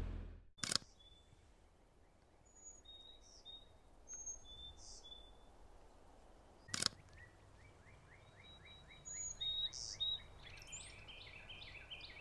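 A camera shutter clicks twice, about six seconds apart, over faint rural ambience with birds chirping.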